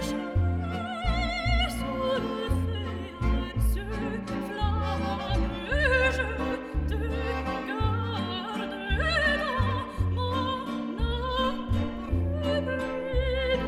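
Background music: a wavering, vibrato-laden melody over a pulsing low bass.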